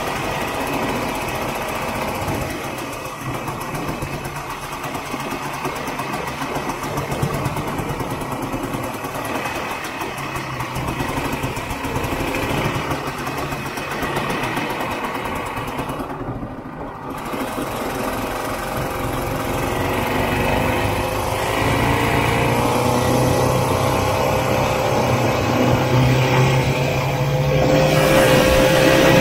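Vintage Ski-Doo snowmobile's two-stroke engine running under way. It dips briefly a little past halfway, then climbs in pitch and loudness over the last third to settle on a steady higher note.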